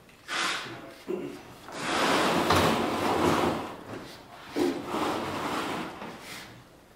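A latch being screwed on by hand with a Phillips screwdriver: several rasping, scraping turns, the longest lasting about two seconds, between short handling knocks.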